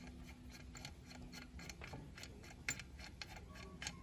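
Faint, irregular light ticking from the rusty ball bearing on the spindle of an old ASADA 120 circular metal cutter as it is turned by finger.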